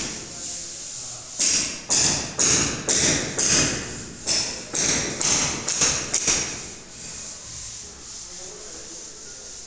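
A run of sharp knocks, about two a second, each with a short ringing tail. They pause briefly near halfway and stop about six seconds in, leaving a faint steady hiss.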